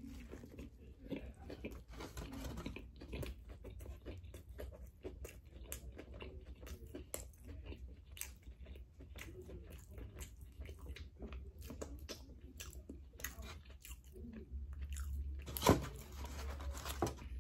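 A person biting into and chewing a crispy fried chicken sandwich: irregular, close crackling crunches and wet chewing, with one louder click near the end.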